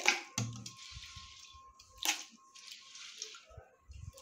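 A hand swishing and scooping soaked rice in water in a stainless steel bowl: a splashy, hissy water sound with a couple of sharp clicks, the loudest about two seconds in.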